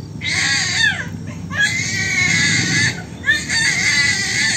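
A small child crying hard: three shrill wails, each about a second long, with short breaths between.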